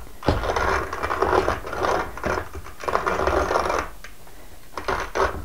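Hand-cranked wooden box coffee mill grinding roasted coffee beans, a continuous gritty grinding as the crank turns. It stops for about a second near the end, then starts again.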